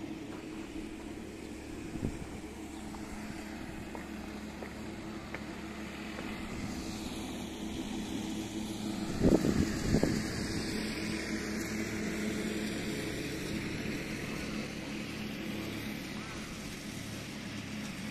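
Ride-on lawn mower's engine running steadily at a distance, a low even hum. A few short thumps about nine to ten seconds in.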